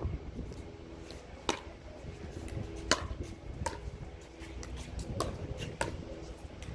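Pickleball rally: a hollow plastic pickleball popping off paddles and the court, sharp pops roughly every second.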